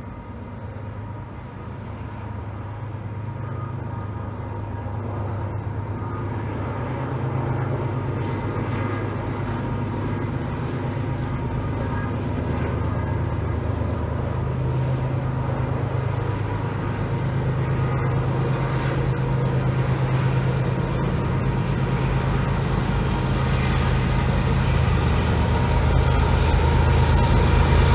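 Diesel locomotives of a Union Pacific freight train approaching, their engines running with a steady low drone that grows gradually louder as they draw near.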